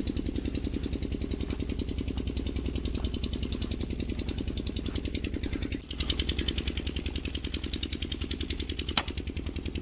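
A small engine running steadily with a fast, even beat, dipping briefly about six seconds in before carrying on, with a single sharp click near the end.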